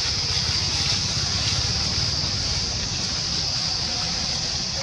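Steady outdoor background noise: a continuous high-pitched hiss over a low rumble, with no distinct calls or knocks.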